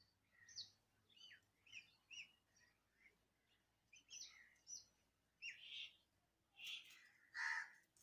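Birds singing: a string of short chirps and whistled notes, many sliding downward, with a louder, harsher call near the end.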